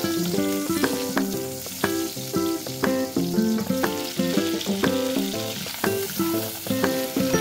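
Light instrumental background music with short plucked notes in a steady rhythm, over the sizzle of sliced onion and garlic frying in oil in a stainless wok, with raw chicken feet added to the pan.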